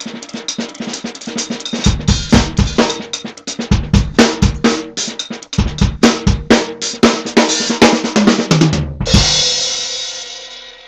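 Sonor S-Class drum kit with Zildjian cymbals played in a fast, dense solo of snare and bass drum strokes. About nine seconds in the playing stops on a final cymbal crash that rings on and slowly fades.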